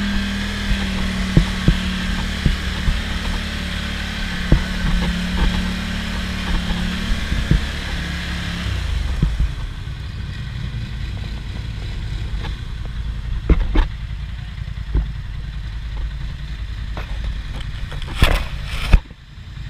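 ATV engine running steadily under throttle as it rides through mud, with scattered knocks and clatter. About nine seconds in the engine eases off to a lower, quieter note, and a couple of loud knocks come just before the end.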